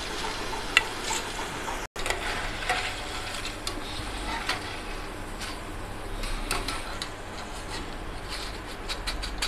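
Hot oil sizzling steadily as raw banana chips fry, with scattered light clicks and scrapes of a wire-mesh skimmer and ladle against the metal frying pan as a batch is lifted out to drain.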